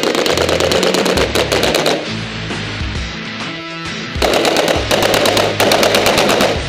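Bursts of rapid full-auto fire from airsoft guns over background music. The firing runs for about two seconds, pauses, then comes back in two shorter bursts in the second half.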